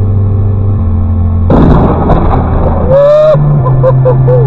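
A sudden loud thunderclap from a close lightning strike about one and a half seconds in: a noisy crash that lasts about a second and a half. It is followed by a short rising-and-falling wail.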